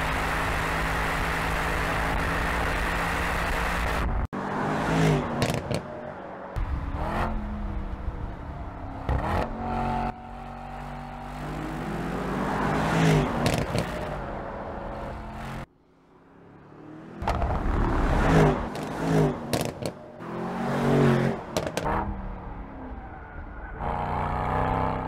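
Mercedes-AMG E63's 4.0-litre twin-turbo V8 driven hard on a track. It holds a steady note for the first four seconds, then revs up and drops back again and again through gear changes. About two-thirds through, the sound briefly falls almost silent before building up again.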